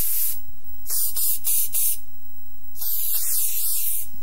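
Aerosol spray can hissing in bursts: one spray cuts off just after the start, a quick run of short sprays follows a second or two in, then one long spray near the end.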